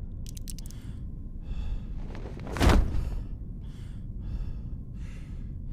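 A man panting heavily after exertion, with several ragged breaths in a row over a low steady rumble. A single heavy thud comes about two and a half seconds in.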